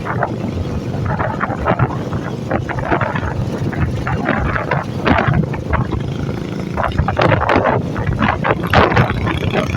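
Royal Enfield motorcycle running on the road, its engine a steady low rumble, with wind gusting irregularly across the microphone.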